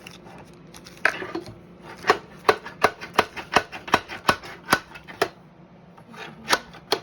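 A quick run of sharp taps or knocks, about three a second for around three seconds, then two more near the end.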